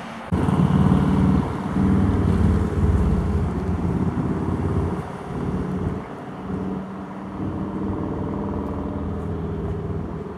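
Diesel locomotive engine running, its low drone loudest for the first few seconds, then easing somewhat.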